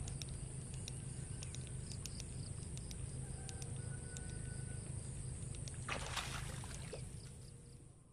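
Outdoor pond-side ambience: a steady low rumble and a constant high hiss, with scattered faint ticks. About six seconds in comes a brief, louder noisy burst, after which the sound fades.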